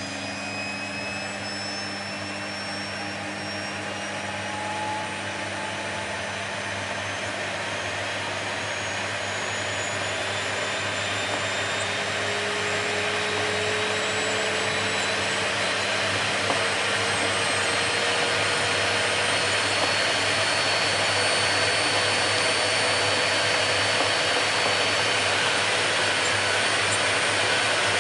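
Vacuum cleaner running continuously, a steady rushing hum with a motor whine that slowly rises in pitch as it gradually grows louder.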